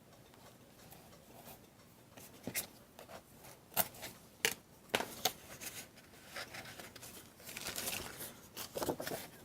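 Paper and cellophane craft materials being handled: crinkling and rustling with a run of sharp clicks and taps.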